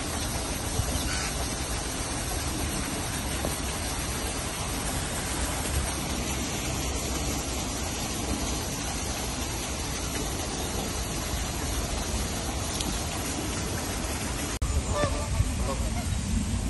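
Steady outdoor background noise with a low rumble. After a sudden cut near the end it turns louder and uneven, with a few short calls.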